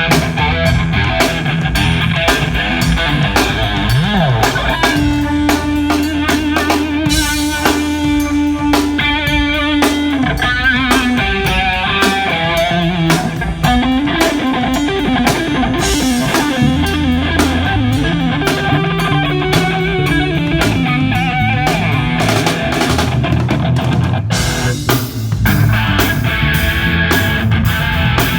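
Rock band playing: electric guitar over a drum kit keeping a steady beat, with a low bass line underneath.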